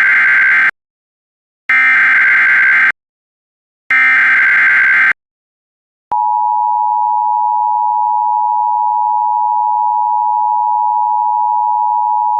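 Emergency Alert System SAME header: three screeching digital data bursts about a second each, the first already under way, carrying the coded Civil Emergency Message. About six seconds in they give way to the EAS attention signal, a steady two-tone beep that keeps going.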